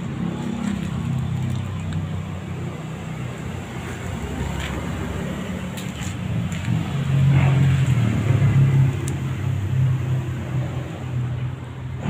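A motor engine running steadily with a low hum, swelling louder about seven seconds in and easing off again toward the end.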